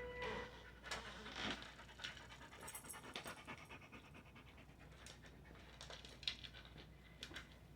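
A dog panting faintly, with short irregular clicks and mouth noises.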